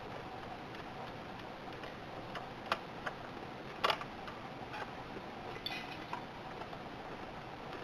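Scattered light metallic clicks and clinks from hand tools working on a motorcycle's gear shift linkage. A sharp click comes near three seconds in, the loudest cluster just before four seconds, and a short scrape follows about two seconds later, over a steady background hiss.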